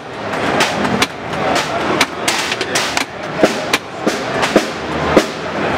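Drums being struck in quick, irregular hits, a few of them with a short ringing tom-like tone, over a steady background din.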